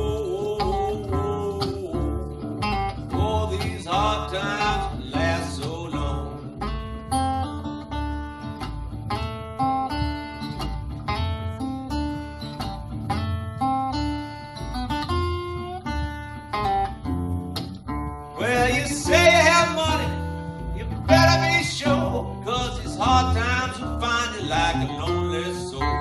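A live acoustic blues band playing an instrumental break: a Gretsch Jim Dandy acoustic guitar picking a run of quick single notes over a steady low bass line.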